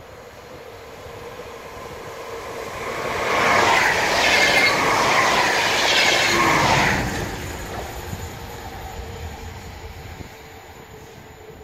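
Passenger train with double-deck carriages passing close by at speed. It swells to its loudest a few seconds in, with a rushing rumble and high whining tones, then fades away.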